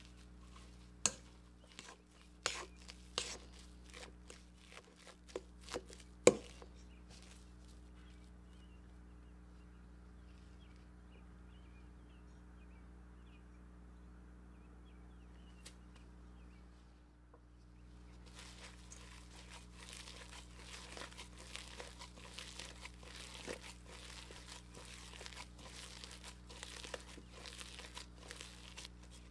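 Metal potato masher pressing boiled potatoes in a stainless steel bowl, with several sharp clinks of the masher against the bowl in the first six seconds. After a quiet spell, gloved hands squeeze and knead the seasoned mashed potato in the bowl, a dense run of small soft squishing noises.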